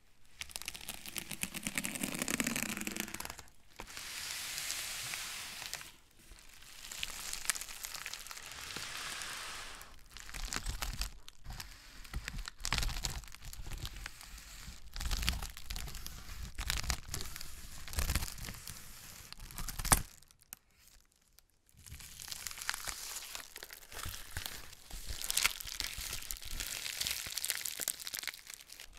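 Plastic bubble mailer being slit with a scalpel and cut with scissors, its plastic crinkling and rustling as it is handled and opened. A sharp click about two-thirds through.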